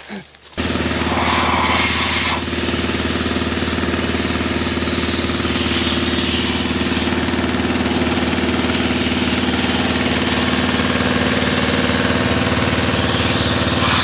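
An engine running steadily at constant speed, cutting in abruptly about half a second in.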